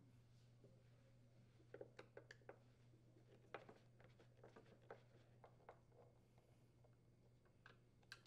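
Near silence with scattered faint clicks and taps: a driver working on the blower cover screws of a plastic leaf blower housing, over a faint steady low hum.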